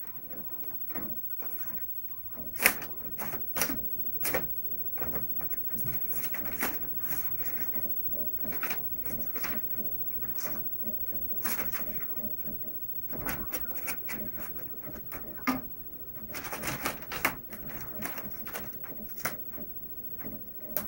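Irregular clicks, taps and light knocks of a printer's plastic parts being knocked about, with short stretches of scraping or rattling in between; the sharpest knock comes about two and a half seconds in.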